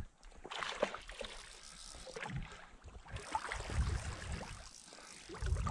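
Irregular sloshing and splashing of someone wading through shallow lake water, with a few louder low rushes.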